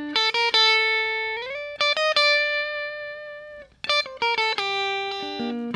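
Electric guitar playing a single-note melodic line over D minor, picked note by note and mixing chord tones with scale passing notes. About a second and a half in, one note slides up in pitch. Near the end the notes step down in a descending run.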